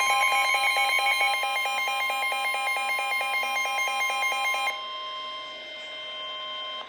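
Emergency Alert System attention tone announcing a severe thunderstorm warning: a steady high tone with a harsh, rapidly pulsing alarm tone over it. The pulsing part stops about two-thirds of the way through, leaving the steady tone alone and quieter.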